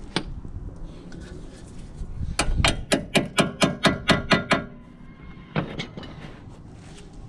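A hammer strikes the steel front hub and brake assembly of a car in a quick series of about ten blows, roughly five a second, and the metal rings after each one. Two more single knocks follow about a second later.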